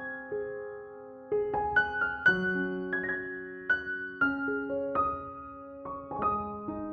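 Background music: a soft piano playing gentle chords and single notes that ring and fade.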